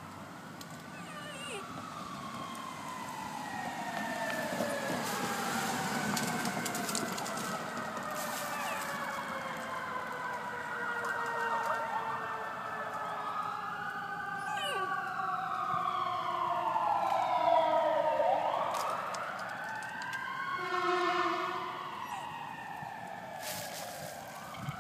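Fire truck sirens wailing: several overlapping rising and falling wails that swell to their loudest about two-thirds of the way through, then fade. A short steady tone breaks in about three-quarters of the way through.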